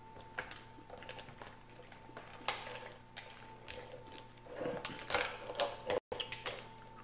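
Snow crab leg shells cracking and snapping as they are broken apart by hand: a run of sharp, crunchy clicks, with a loud crack about two and a half seconds in and a dense crackling cluster around five seconds.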